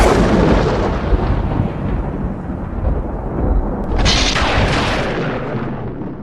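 Dramatic boom sound effect of the thunder-clap kind: a rumbling crash dying away over several seconds, then a second boom about four seconds in that also fades out.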